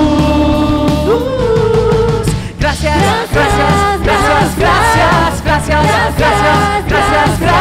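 Spanish-language worship song with singing. A long held sung note opens it, then the full band comes in with a steady beat from about three seconds in.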